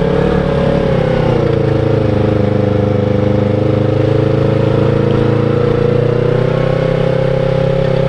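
Motorcycle engine running steadily while riding at low speed. The engine note barely changes in pitch, easing slightly about a second in.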